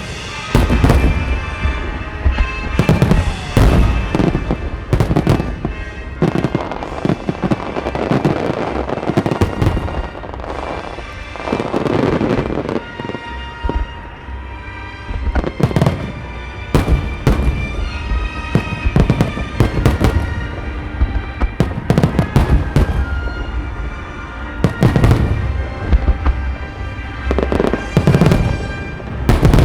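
Aerial fireworks bursting repeatedly, many sharp bangs with some in dense rapid clusters, over music playing throughout.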